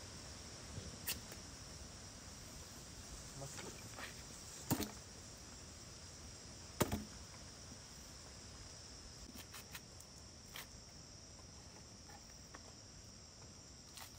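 Steady high-pitched chirring of jungle insects, with a few sharp clicks or knocks, the loudest about five and seven seconds in.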